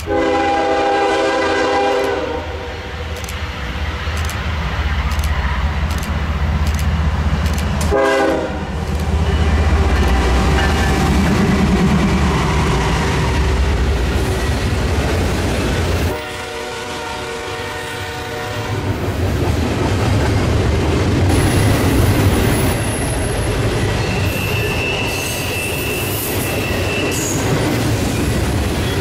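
Nathan K5HL five-chime air horn on a Norfolk Southern GE ES44DC locomotive sounding three blasts, long, short, then long. Underneath it, the steady low rumble of the passing diesel locomotives. Then double-stack intermodal cars roll past with clickety-clack and a brief high wheel squeal near the end.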